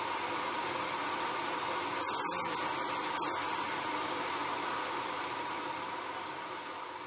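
Steady rushing noise with a faint whine from the Bloodhound LSR jet car, heard in its cockpit. There are brief dropouts about two and three seconds in, and it fades away over the last couple of seconds.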